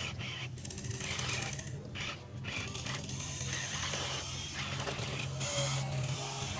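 Small electric motors and gearboxes of a radio-controlled model construction vehicle running: a steady low hum under a rattling, ratchet-like gear grinding.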